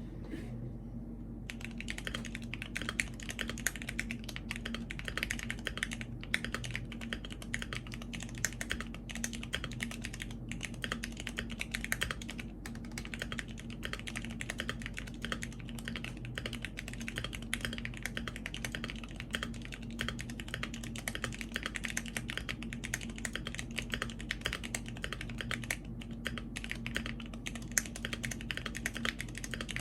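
Continuous fast typing on a Cannonkeys Bakeneko65 mechanical keyboard, a dense stream of key clacks that starts about a second and a half in, with a few brief pauses, over a low steady hum.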